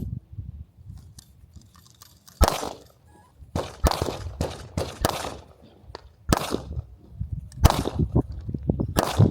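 Glock pistol firing a string of single shots, about eight spaced roughly a second apart, each a sharp crack with a short echoing tail.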